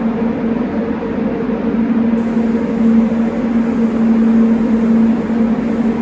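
Steady mechanical hum over a rush of moving air, from a spray booth's extraction fan running.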